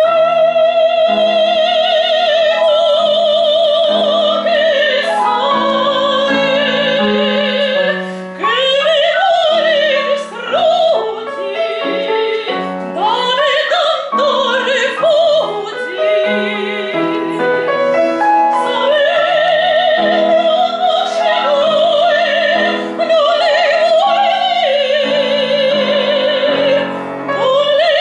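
Soprano singing an operatic aria with piano accompaniment, her voice entering suddenly with wide vibrato. She holds long notes at the start and end, with quicker moving phrases in the middle.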